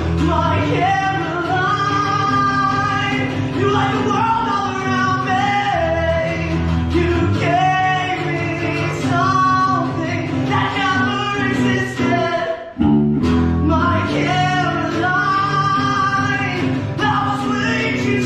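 A rock song with a singing voice over the band. The music cuts out for a split second about two-thirds of the way through, then comes straight back in.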